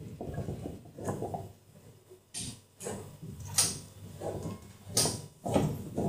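Plastic clicks and rustling handling as a washing machine inlet hose's plastic coupling is fitted back onto the machine's water inlet, with three sharper clicks in the second half.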